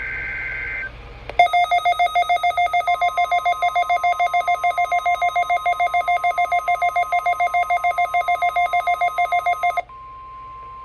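Midland WR-300 weather radio receiving a NOAA Weather Radio weekly test. It opens with the end of a SAME header data burst, a two-tone digital screech. Then the radio's own alert sounds as loud, rapid beeping, about six beeps a second for about eight seconds, over the station's steady 1050 Hz warning alarm tone, which carries on alone near the end.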